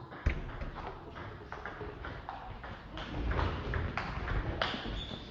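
Table tennis rally in doubles: the ball is struck back and forth with the bats and bounces on the table, a quick run of sharp clicks.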